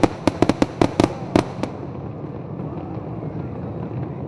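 Aerial fireworks shells bursting in a rapid string of about ten sharp bangs over the first second and a half, then stopping, leaving a steady background din.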